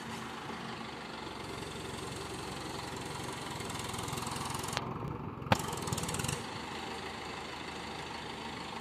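Swaraj 855 tractor's diesel engine running steadily, with a single sharp click about halfway through.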